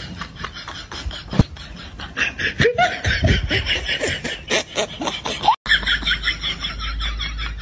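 A boy laughing hard in quick repeated giggles, loudest in the middle, with a brief dropout about five and a half seconds in.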